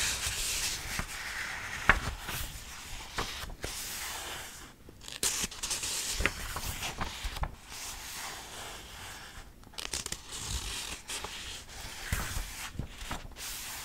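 Paperback book pages rustling and flipping as someone leafs through looking for a passage, with small crinkles and taps and a few short pauses.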